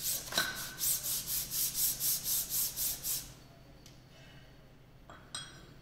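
Metal hydraulic pump housing section rubbed back and forth face-down on a sheet of abrasive paper on a flat plate: quick scraping strokes, about four a second, stopping after about three seconds. Two light knocks follow near the end.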